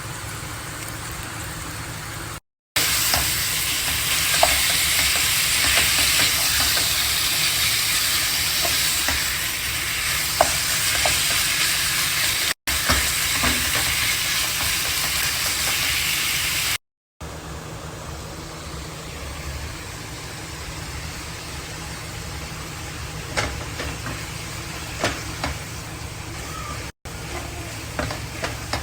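Food sizzling as it fries in a pan, with light clicks of a utensil stirring it. The hiss is louder in the middle part and drops off at an abrupt cut about two-thirds of the way through.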